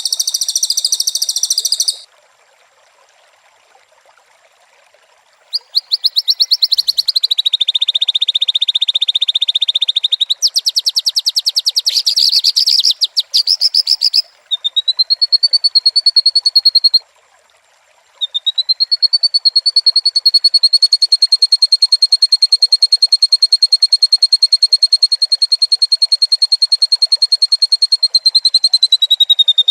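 White-rumped shama (murai batu) singing in loud, rapid, high-pitched trills. The bouts are broken by a few short pauses, and near the end one steady trill is held for about ten seconds.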